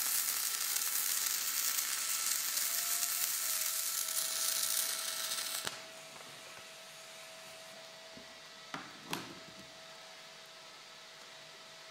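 Arc welding with Polaris Maxi Shield Pro gas-shielded flux-cored wire on a dirty, cracked steel trailer tongue: the arc gives a steady sizzling hiss that cuts off suddenly about halfway through. After it comes a quiet steady hum, with two sharp clicks close together a few seconds later.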